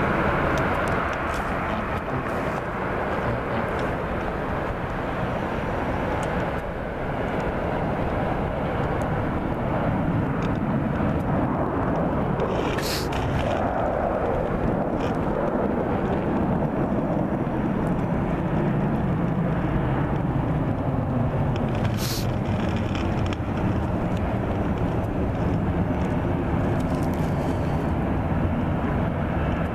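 Jet airliner engines running, a steady rush that holds the whole time and swells low down in the middle. Two brief sharp clicks are heard, the second about eight seconds after the first.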